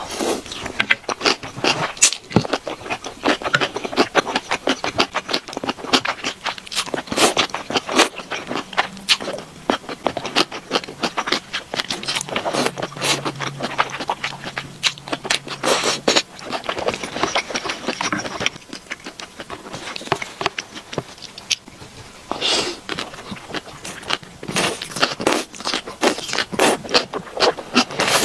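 Close-miked mukbang eating of spicy beef tripe and gongcai in chili oil: a dense, irregular run of wet crunching and chewing clicks, with a few longer slurps.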